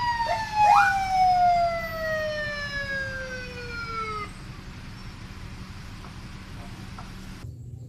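Police siren sound: one long wail falling steadily in pitch for about four seconds, then stopping, with two short rising chirps near the start. A steady low hum follows and cuts off near the end.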